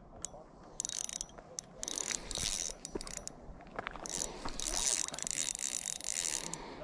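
Spinning reel being cranked to wind in line: a rapid clicking whir from the reel's gears, coming in several spurts with short pauses, the longest spurt in the second half.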